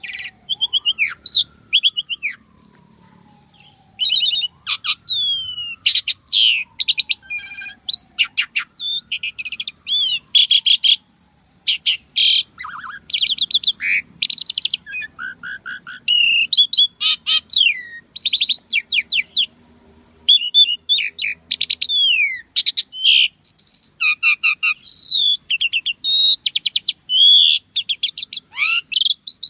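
Asian pied starling (jalak suren) singing a long, varied song: a dense run of whistles, rapid clicking trills and rising and falling notes. In the first few seconds a long falling whistle repeats three times beneath it.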